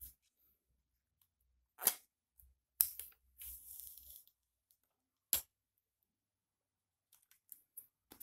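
Protective plastic film being peeled off the back of a Meizu m3s smartphone, a short rustling tear about three and a half seconds in. Around it come a few sharp clicks and taps as the phone is handled.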